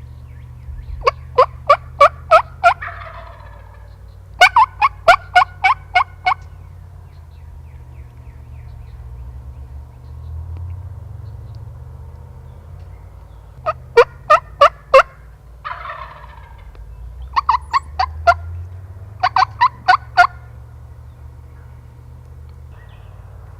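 Wild turkey yelping: five loud runs of quick, evenly spaced notes, some runs of four or five notes and some of seven or eight. Right after the first and third runs comes a fainter rolling call.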